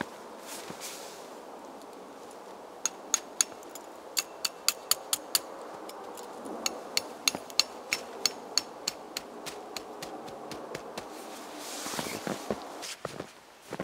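Thin metal tent stakes being driven into snowy ground with the back of a hatchet head: sharp metallic taps, about three a second in short runs, from about three seconds in until a few seconds before the end. A brief rustle follows near the end.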